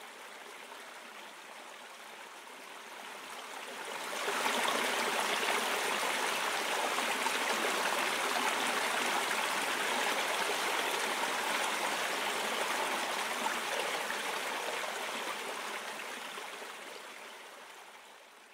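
River water rushing steadily over rocks. It gets louder about four seconds in and fades out near the end.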